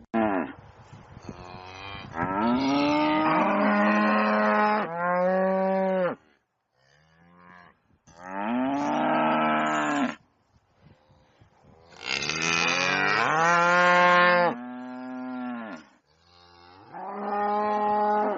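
Cattle mooing: a series of about six long moos with short pauses between them, some bending upward in pitch.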